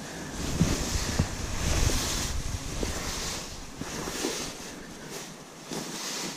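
Tall grass rustling and swishing close by, in repeated airy swishes, with wind buffeting the microphone as a low rumble that eases after the first couple of seconds.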